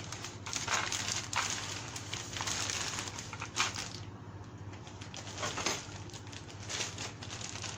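Plastic packaging crinkling and rustling in irregular strokes as bagged RC truck kit parts are handled.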